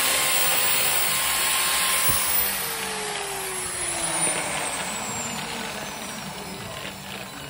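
Electric angle grinder with a sanding disc running at full speed, then switched off about two seconds in; its motor whine falls steadily in pitch and fades as the disc spins down. A knock comes as the grinder is set down on the floor.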